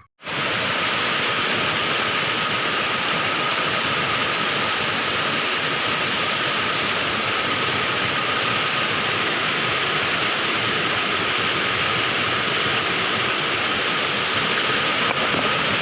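Waterfall: a loud, steady rush of falling water that starts abruptly a moment in.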